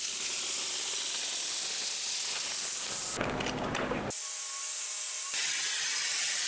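Plasma cutter hissing steadily as it cuts steel plate. The sound changes abruptly a little after three seconds and again after four, when the low part drops out for about a second before the hiss returns.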